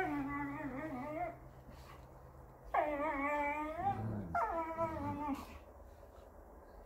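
A dog whining during rough play, three long, wavering whines with a brief low growl about four seconds in. A single sharp knock at the very end.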